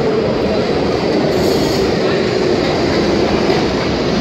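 New York City subway train running slowly through a station, heard from aboard: a steady, loud rumble and rattle of the wheels on the track.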